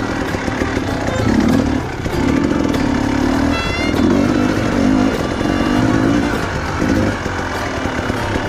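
Dirt bike engine revving up and down in repeated surges, about one a second, as it is ridden over rough ground.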